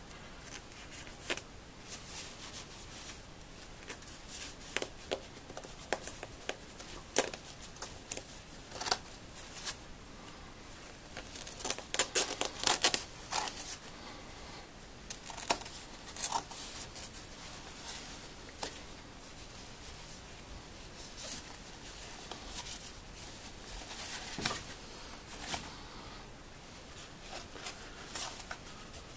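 Scissors snipping through a nylon coat and its lining, with the nylon fabric crinkling as it is handled. The cuts come one at a time at uneven intervals, with a quick flurry of snips about twelve seconds in.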